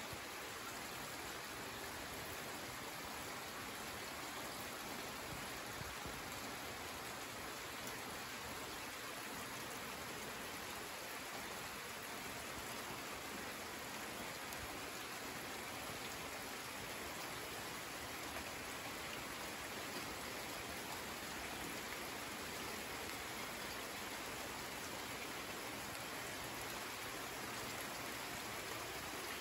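Steady rainfall on trees and leaves: an even, unbroken hiss of drops that neither builds nor fades.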